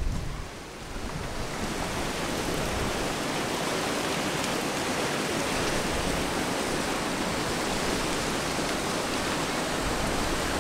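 Steady rush of a river and waterfall in a rocky gorge, a hiss that swells over the first couple of seconds and then holds.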